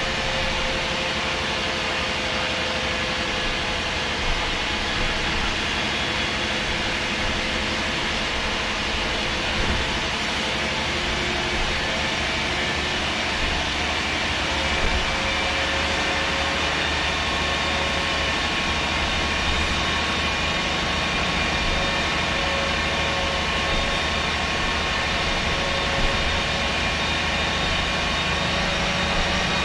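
MAN SD202 double-decker bus with its MAN D2566 MUH diesel engine and Voith Diwa 851 automatic gearbox, heard from inside the bus: a steady engine drone with steady high whines from the drivetrain and a few small knocks and rattles. A further steady whine joins about halfway through.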